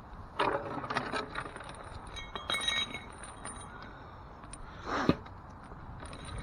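Metal objects clinking and clanking together: a cluster of sharp clinks with short ringing about half a second to a second in, another around two and a half seconds in, then a louder knock about five seconds in. Typical of scrap metal pulled up on a fishing magnet being handled.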